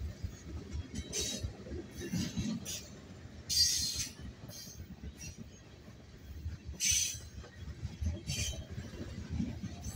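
Freight train of tank cars rolling past: steel wheels on the rails give a steady low rumble, broken several times by short high-pitched metallic wheel squeals. The loudest squeals come about three and a half and seven seconds in.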